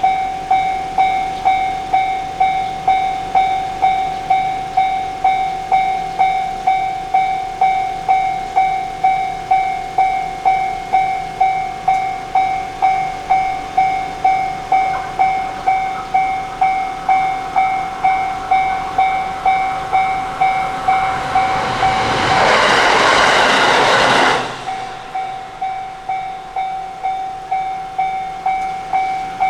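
Japanese railway level-crossing warning bell ringing steadily, about two strokes a second. A train passes through the crossing from about 21 to 24 seconds in, its noise briefly drowning the bell before cutting off sharply, and the bell keeps ringing after it.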